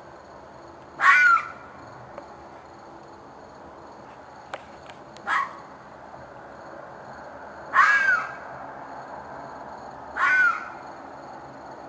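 An animal screaming outdoors at night: four loud, harsh calls of about half a second each, a few seconds apart, the second one shorter and quieter. The recordist takes it for a fox or a coyote in distress.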